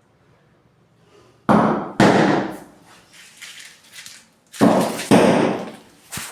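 Heavy knocks on a hard surface: two loud blows about half a second apart, a few lighter knocks, then two more loud blows.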